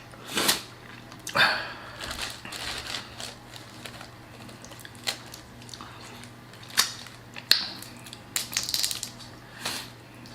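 Close-up eating and food-handling sounds from a seafood boil: scattered crunches and sharp clicks as crawfish, shrimp and potato are handled and eaten from a sauce-filled plastic bag.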